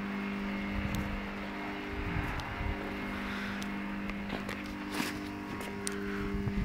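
Street background on the microphone: a steady low hum under an uneven low rumble, with a few faint taps and clicks, the sharpest about five seconds in.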